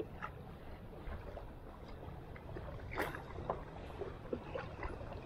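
Small inflatable dinghy coming in through shallow water: a low uneven rumble with light water splashes and small knocks, one sharper knock about three seconds in.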